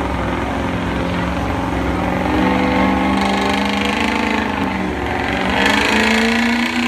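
Pickup truck engine running hard at high revs as it drags a weight-transfer pulling sled, its pitch wavering and stepping up near the end.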